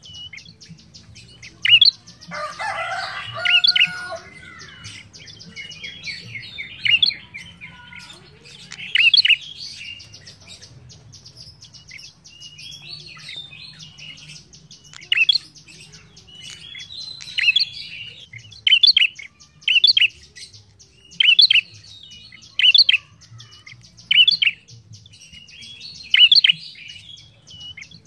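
A caged rufous-headed tailorbird (sold as prenjak kepala merah) calling: loud, sharp call notes repeated every second or two, with a harsher chattering burst a couple of seconds in. A fast, high ticking runs underneath.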